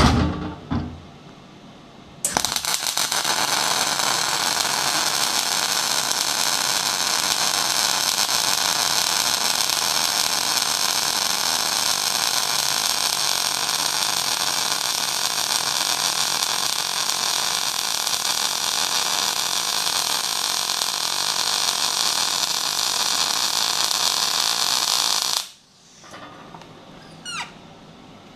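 MIG welding arc running a continuous bead on heavy steel plate at about 153 amps and 24 volts: a loud, steady crackling hiss that strikes about two seconds in and cuts off abruptly near the end. The run lays down a lot of metal that sits too proud on top of the plate.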